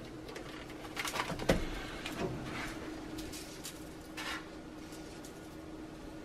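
A block of raw ground beef slid from its tray into an oiled frying pan, landing with a thump about a second and a half in, followed by a few light crackles from the pan over a steady low hum.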